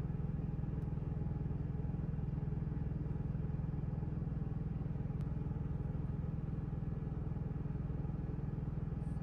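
Onan QG 2800i gasoline generator running steadily beneath the camper van, heard from inside as an even low hum; it is charging the house batteries.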